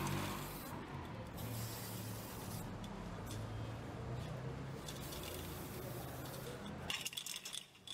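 Aerosol spray-paint can hissing in several spurts as paint goes onto a bicycle frame, one longer spurt a couple of seconds in and the loudest near the end.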